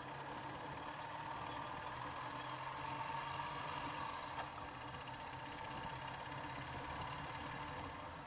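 Ural sidecar motorcycle's flat-twin engine running steadily, fairly faint, with its pitch rising a little about three seconds in and then easing back.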